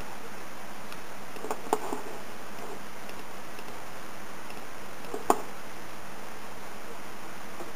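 Computer mouse button clicking, a few short sharp clicks about one and a half seconds in and two more about five seconds in, the last the loudest, over a steady hiss.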